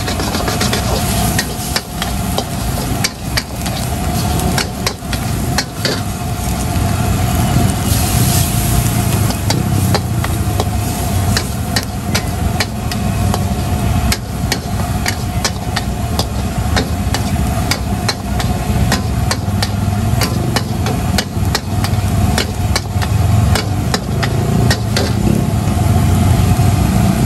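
Metal wok ladle scraping and clanking against the wok as fried noodles with squid and prawns are stirred and tossed, with sizzling. Under the irregular clanks, often several a second, runs the steady low rumble of the gas burner.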